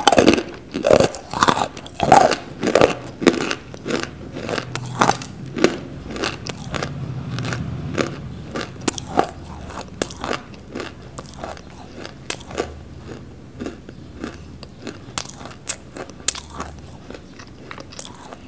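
Close-miked biting and chewing of a chunk of non-roasted Nakumatt edible clay: loud, dry crunches in quick succession at first, settling into steadier chewing with fainter crunches.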